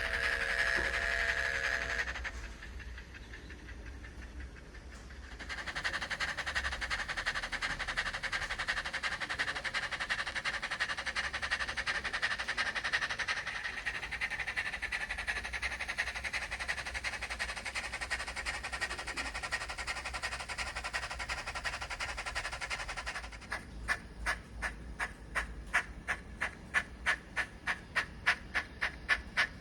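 Steam locomotive sound from a Zimo MS480R DCC sound decoder playing through a tiny speaker in an OO9 Small England 0-4-0 model. A whistle ends about two seconds in, then a long steady hiss of steam, then exhaust chuffs start about three-quarters of the way through and quicken as the engine gets under way.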